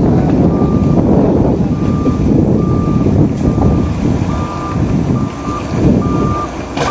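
Heavy earthmoving machine's back-up alarm beeping evenly, a little more than once a second, over the loud rumble of its diesel engine.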